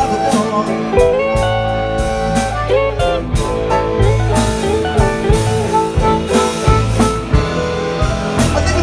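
Live blues band playing: an electric guitar plays lead lines with bent notes over a drum kit and upright bass.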